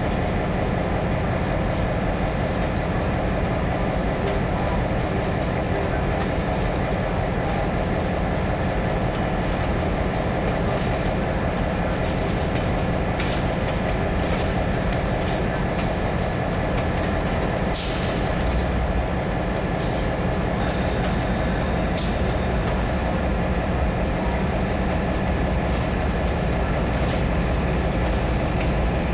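Amtrak passenger cars rolling slowly past on a curve: a steady rumble of wheels on rail with scattered clicks over the joints. A sharp hiss or clank comes just before eighteen seconds in, and a brief thin high wheel squeal follows a couple of seconds later.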